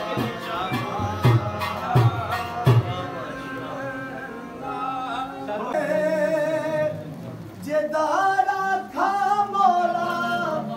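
Music: a few heavy drum beats in the first seconds, then a man singing long, wavering notes in a devotional style.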